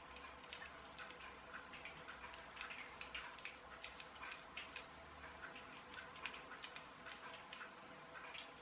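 Faint, irregular small clicks and scrapes of a precision screwdriver working the screws of a plastic screw terminal strip (chocolate block connector), over a faint steady hum.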